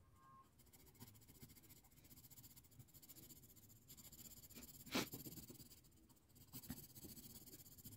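Faint scratching of a coloured pencil shading on paper, with a brief sharp noise about five seconds in and a smaller one shortly after.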